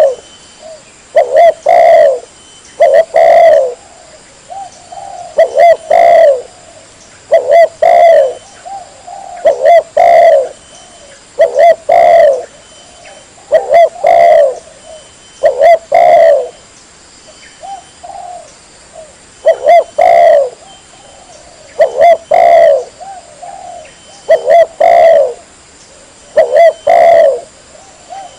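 Spotted dove (tekukur) cooing over and over, loud phrases of two or three coos repeated about every two seconds: a lure call for drawing wild doves.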